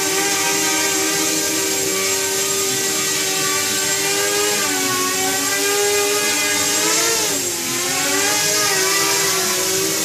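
Nighthawk 250 mini FPV quadcopter's four brushless motors and propellers whining steadily in flight. The pitch dips about halfway through and again near the end, dropping and climbing back as the throttle is eased off and opened up.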